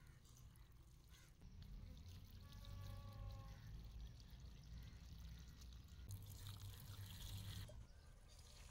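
Faint trickle of diluted liquid fertilizer poured from a plastic jug onto the soil around pepper plants.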